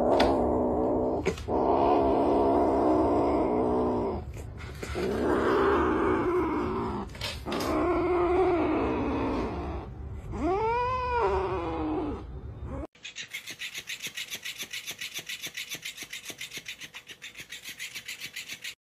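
Kitten growling long and low over a piece of raw chicken, a food-guarding growl, in several drawn-out growls with a rising-and-falling yowl about eleven seconds in. After the growling stops suddenly, a faint, even pulsing follows.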